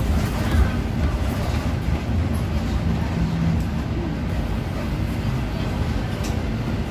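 A city bus in motion, heard from inside the passenger cabin: a steady rumble of engine and road noise.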